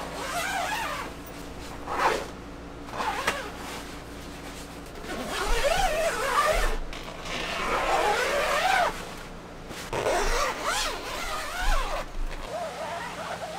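Zippers on a tent trailer's canvas window panels being pulled open in about six separate runs, each a rasp whose pitch rises and falls with the speed of the pull, along with the canvas flap rustling.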